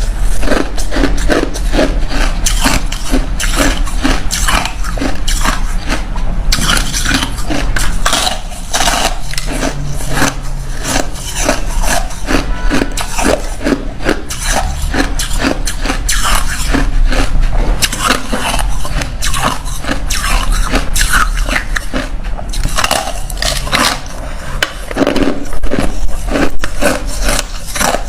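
Ice being bitten and chewed close to the microphone: a steady run of loud, rapid, irregular crunches and cracks.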